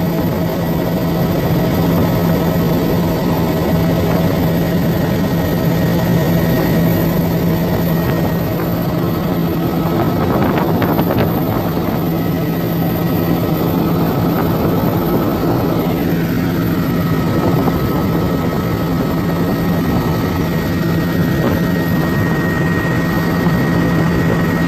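Helicopter cabin noise in flight: a loud, steady drone of engine and rotor with a strong low hum and thin high whines over it. About two-thirds of the way through, one whine slides down in pitch.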